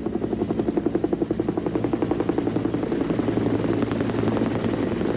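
Sikorsky H-19 helicopter hovering low overhead: its main rotor makes a fast, even chop over the steady drone of its piston engine.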